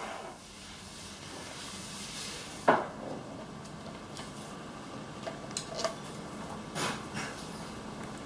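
Metal clinks and clicks of a compression tester and hand tools being handled, with one sharp click a little under three seconds in and a few lighter clinks later, over a faint steady hum.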